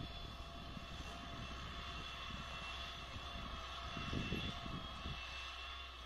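Distant Valmet 985 tractor's diesel engine droning steadily under load as it pulls an offset disc harrow, with a steady whine over it. Irregular low wind rumble on the microphone swells about four seconds in.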